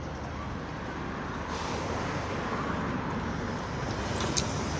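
Double-decker bus engine running steadily at a stop, mixed with street traffic noise.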